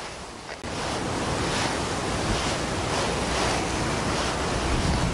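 Wind blowing on the microphone over sea water lapping at the quay: a steady rushing noise that grows louder about a second in.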